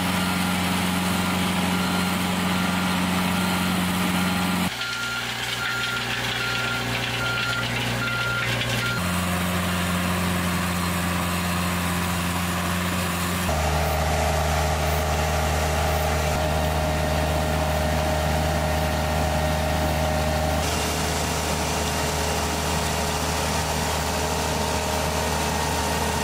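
Mini compact track loader engines running steadily under load while the machines drive a rotary harrow through soil. The sound changes abruptly several times between shots of the 50 HP and 25 HP machines. A reversing alarm beeps steadily from about five to nine seconds in.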